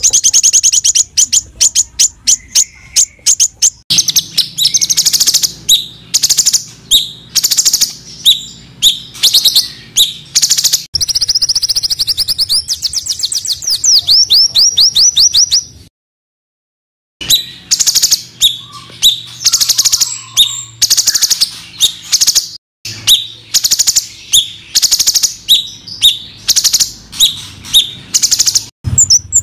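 Small songbirds singing tight, harsh 'tembakan' phrases: fast trains of sharp, high chirps repeated several times a second. The calls stop for about a second near the middle, then start again.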